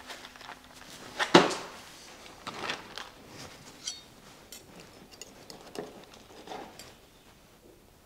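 Plastic takeaway food tray being handled and set down with a clack about a second in, then light scraping and tapping of a knife and fork in the tray as the meal is checked.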